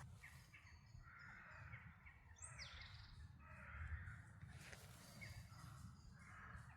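Faint crow cawing, several harsh caws a second or so apart, with an occasional thin call from a smaller bird.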